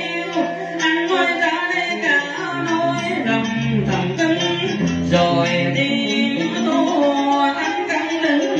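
Male voice singing a cải lương vọng cổ passage through a microphone and PA, over a live accompaniment of plucked string instruments, including guitar.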